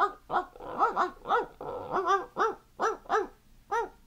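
A small dog yapping: about a dozen short, high yips in quick succession, each rising and falling in pitch.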